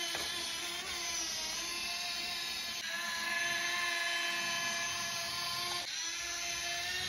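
Steady high-pitched whine of small electric motors and gearing, as in RC model vehicles, shifting slightly in pitch about three seconds in and again near six seconds.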